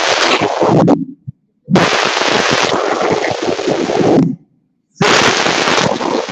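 A chorus of schoolchildren reciting a poem in unison in Hungarian, loud and harshly distorted, in phrases broken by two short silent gaps.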